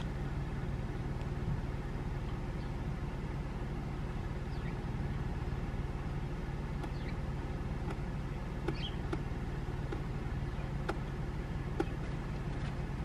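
Steady low hum of an idling vehicle engine, with a few faint short clicks in the second half.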